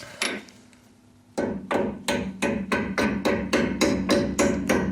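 A hammer striking steel parts of a Suzuki Samurai front axle knuckle, driving out a stuck part. One knock, a pause, then rapid steady ringing blows, about four a second.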